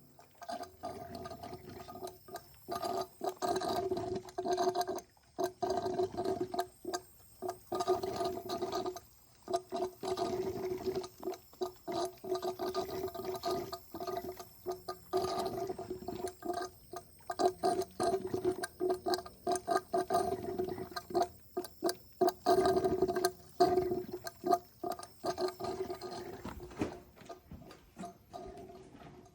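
Compressed air from a leak-down test on a Ford F-150 engine bubbling and gurgling up through the coolant: an irregular, choppy burbling that the test takes as the sign of a blown head gasket.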